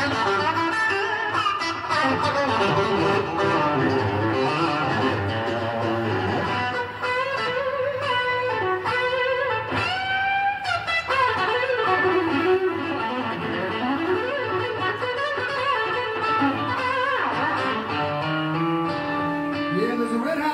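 Live electric guitar lead on a sunburst Stratocaster-style guitar: quick runs of notes, many of them bent up and down in pitch.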